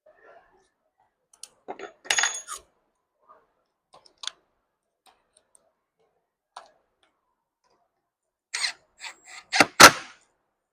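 Scattered metallic clicks and clatter of small screws, parts and a hand tool being handled on a workbench during steering wheel reassembly, with a cluster of clicks and one sharper knock near the end.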